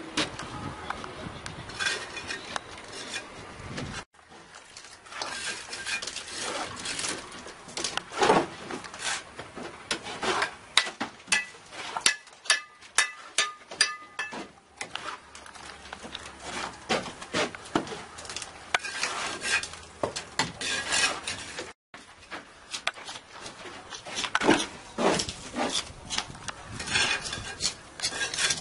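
Steel mason's trowel clinking and scraping against bricks and mortar, with irregular sharp taps and knocks as bricks are set and trimmed. The sound cuts off abruptly twice.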